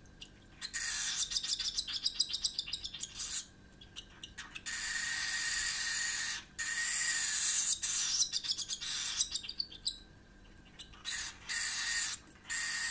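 Cockatiel chick's raspy food-begging calls while being hand-fed: runs of rapid rasping pulses and longer drawn-out calls in the middle, broken by brief pauses.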